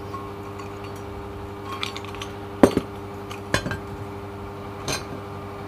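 Several light metallic clinks as the steel tube and spindle of an inner bearing puller are handled and lifted off the brake disc they brace against, over a steady background hum.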